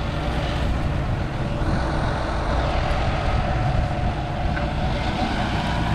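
John Deere 6155R tractor's 6.8-litre six-cylinder diesel engine running at a steady speed, with a steady whine above the engine note.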